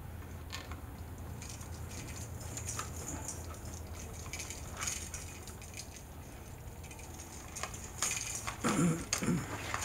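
Bare copper ground wires being handled and joined together in a plastic electrical switch box: faint, scattered small clicks and scrapes over a steady low hum.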